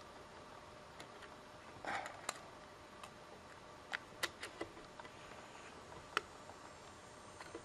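Scattered small, sharp plastic clicks and taps, about half a dozen, with a brief rustle about two seconds in: hands handling the PS3 Slim's Blu-ray drive parts and cable clips.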